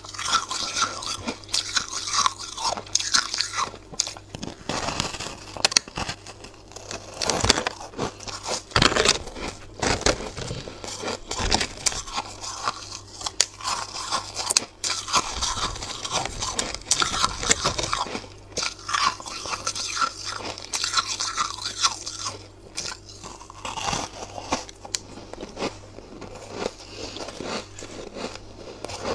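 A frosty ice block coated in matcha powder, bitten and chewed close to the microphone: a dense run of crisp crunches in quick succession.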